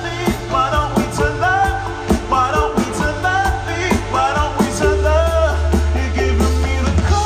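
Live electronic music played loud over a concert sound system: a sung vocal line over heavy held bass notes and a steady drum beat.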